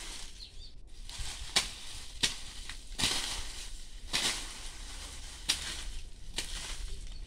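Dry maize stalks and leaves crackling and rustling as they are pulled up and gathered by hand, with a few sharp cracks of stalks snapping.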